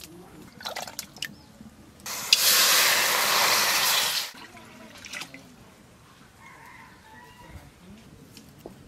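Water poured from a steel bowl into an aluminium kadai sitting on a wood fire, a loud splashing pour that starts about two seconds in and lasts about two seconds. A few light knocks come before and after it.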